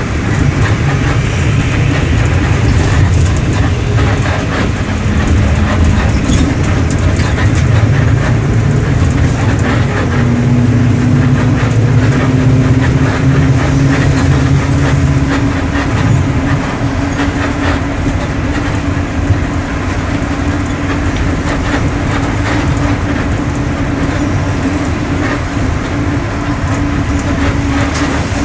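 Mercedes-Benz OM-924 LA four-cylinder inline diesel of an OF-1721 bus running, with a deep rumble that eases after about 16 seconds. About 10 seconds in, a steady higher drone comes in and climbs slightly in pitch, over a background of rattling.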